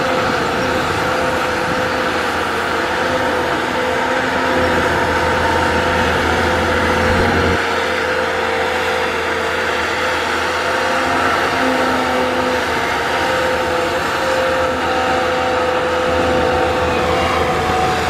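Caterpillar hydraulic excavator's diesel engine running as it digs, a steady drone with a steady whine over it. The low rumble drops away about seven seconds in and comes back near the end.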